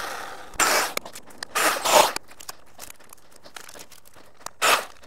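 Milwaukee M18 cordless electric chainsaw's motor winding down, falling in pitch, then three short noisy bursts, the last near the end.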